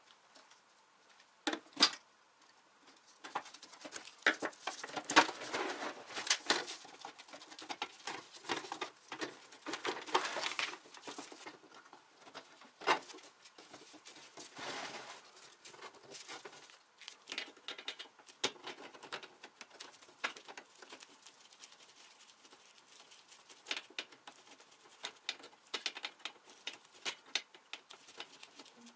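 An old sheet-metal electric barbecue being taken apart by hand: scattered clicks, knocks and scraping of thin metal panels. The sounds come densest in the first half and thin out to sparse clicks as work moves to the wiring and switch with pliers.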